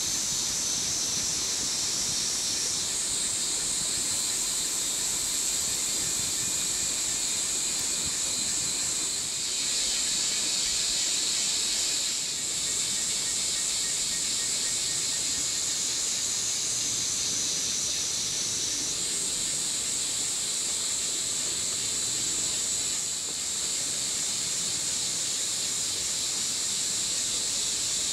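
Chorus of insects buzzing steadily at a high pitch, its tone shifting abruptly a few times.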